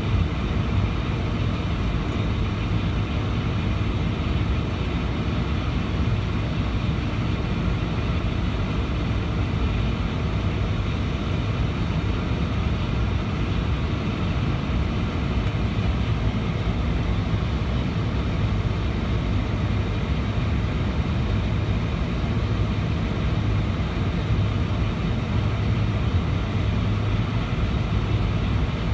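Boeing 747-400 taxiing, heard from inside the cabin over the wing: a steady low rumble from the engines at taxi power.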